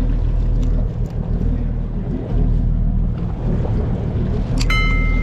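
A boat's engine running steadily, a low rumble. Near the end a bright ringing tone sets in suddenly over it.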